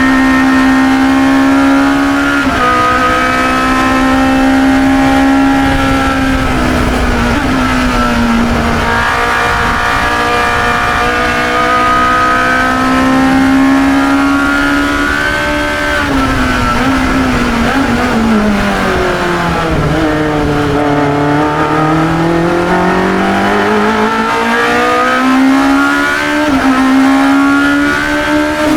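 Engine of a 1972 Chevron B21 2-litre sports racer at racing speed, heard onboard. The revs hold high, dip briefly about a quarter of the way in, then fall to a long low about two-thirds in, as when slowing for a corner, before climbing back up.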